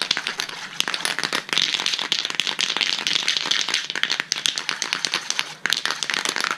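Aerosol can of green spray paint shaken hard, the mixing ball rattling rapidly inside it, with a brief pause near the end.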